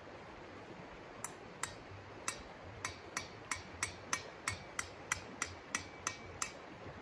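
Orange mallet tapping a tent stake into the ground: about fifteen sharp strikes, slow at first, then quickening to about three a second, some with a faint metallic ring.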